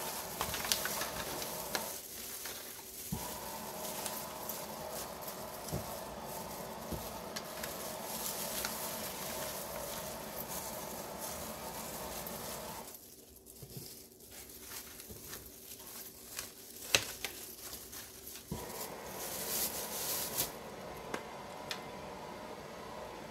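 Crinkling and rustling of plastic food-prep gloves and a disposable aluminium foil pan as a rice paper salad is tossed by hand, with scattered light clicks. The rustle drops away for a few seconds after about thirteen seconds, then picks up again.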